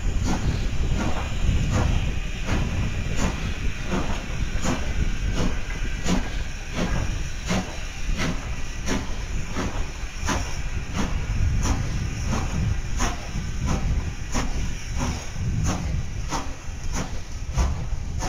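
Strasburg Rail Road steam locomotive No. 90, a 2-10-0 Decapod, working its train: steady exhaust chuffs, about three every two seconds, over steam hiss and a low rumble.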